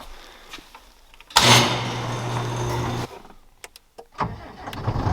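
Skid steer engine running, coming in suddenly about a second and a half in, dropping away around three seconds in with a few sharp clicks in the quiet gap, then running again just after four seconds.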